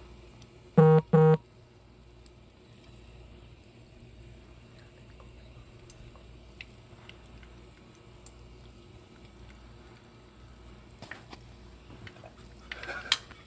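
Two short electronic beeps in quick succession about a second in, then a faint steady sizzle of breaded chicken shallow-frying in oil, with a few light clicks near the end.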